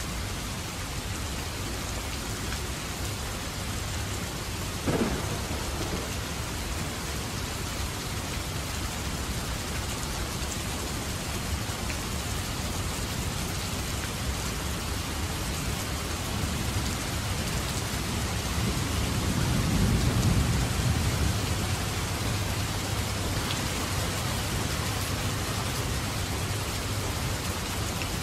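Heavy rain pouring steadily in a thunderstorm. A sharp thunder crack comes about five seconds in, and a low rumble of thunder swells and fades around two-thirds of the way through.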